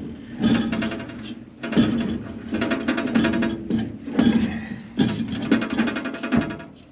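Mini tube cutter being turned around a copper refrigerant liquid line to cut it, in about five short strokes, each a quick run of fine grating clicks.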